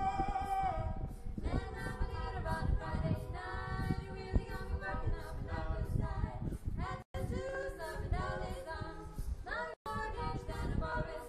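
A cappella vocal group of female and male student singers singing in harmony without instruments, female voices on top. The sound cuts out completely for an instant twice, about seven and ten seconds in.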